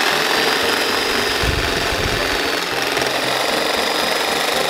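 Reciprocating saw running steadily as its blade cuts through a rubber frame mount on a truck chassis.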